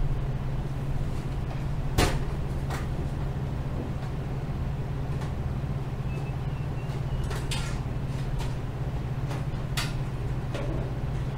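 Scattered sharp plastic clicks and knocks of a power-supply cable connector and the computer case being handled as the connector is worked loose from its latch, over a steady low hum. The loudest click comes about two seconds in, with a few more later.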